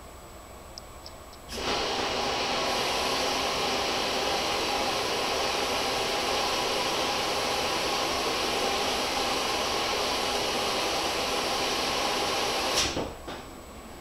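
Front-loading washing machine taking in water. About a second and a half in, a loud steady hiss of water rushing into the machine starts suddenly, then cuts off with a click near the end, and softer knocks of the laundry in the drum follow.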